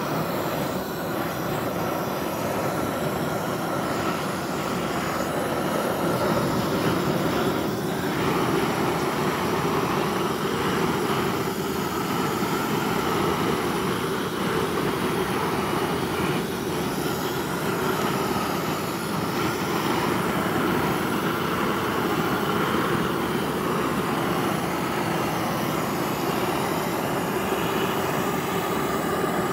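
Grill Blazer Grill Gun propane torch firing a continuous jet of flame onto a steak to sear it: a steady rushing noise of burning gas.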